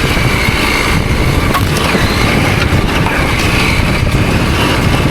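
Husqvarna Norden 901 adventure motorcycle running steadily on a trail ride, a constant loud engine and riding noise with no sudden events.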